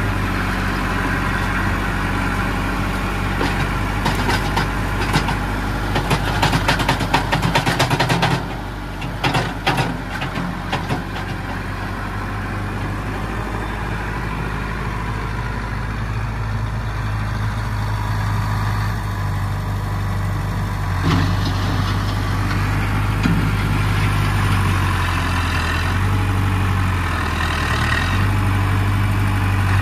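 LS Plus 80 tractor's diesel engine running steadily, with a run of knocks and rattles for several seconds near the start as the front-loader bucket tips earth into a trailer. The engine note rises and shifts later on as the tractor drives off.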